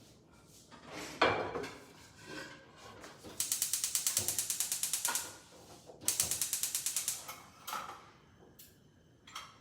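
A knock about a second in, as of a pan set down on the stove, then a gas stove's igniter clicking rapidly in two runs, about two seconds and then just over a second, as the burner is lit.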